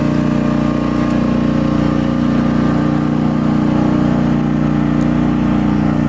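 Skid steer loader with a horizontal-blade mower attachment running at a steady, even engine speed.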